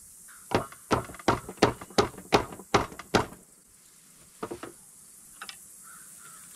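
About eight sharp metallic clunks, roughly three a second, then three more spaced out: the rod of a John Deere 148 loader's hydraulic lift cylinder being yanked against its gland, still stuck in the barrel after the snap ring is off.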